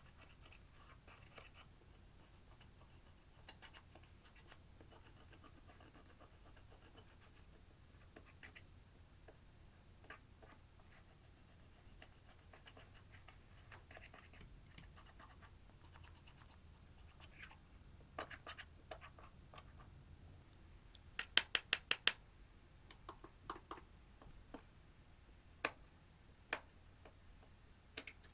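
Clear slime being worked by hand, with faint sticky clicks and small pops. A quick run of about six sharp pops comes a little past two-thirds of the way through, with a few more single pops later.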